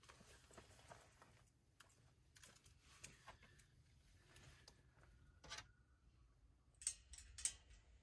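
Faint rustling and small clicks of camping gear being handled, with a few sharper clicks near the end.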